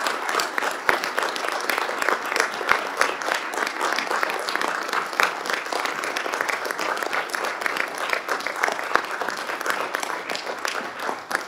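Applause from a seated group, many hands clapping steadily.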